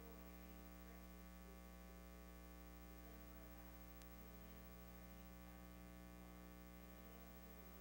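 Near silence: a steady electrical mains hum, with one faint click about four seconds in.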